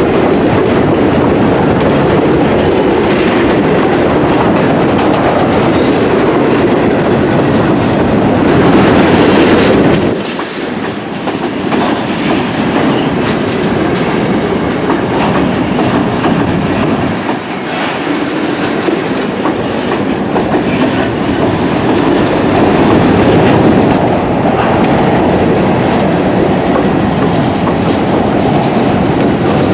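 A train rolling past, its cars' wheels clattering steadily over the rail joints, with a brief high-pitched wheel squeal about eight seconds in.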